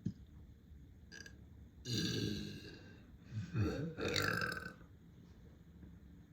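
A person letting out deep burps, two in a row: a short one about two seconds in, then a longer one about a second later.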